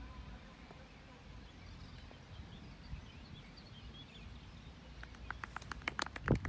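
Quiet outdoor ambience with faint, scattered birdsong chirps and a low rumble. Near the end a quickening run of sharp clicks and crackles starts.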